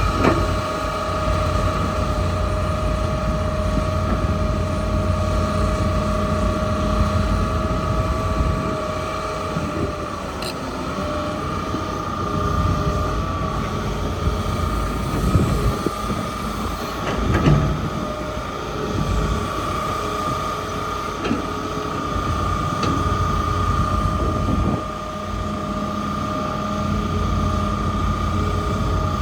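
Hitachi excavator working: a steady low engine rumble with a constant high whine over it, and a few short knocks and clanks.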